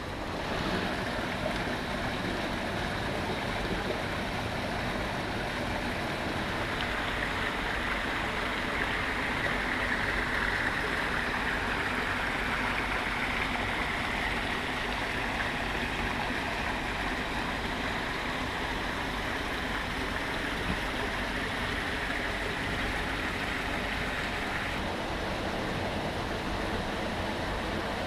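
Steady rush of running water, splashing without pause; its tone changes slightly about three seconds before the end.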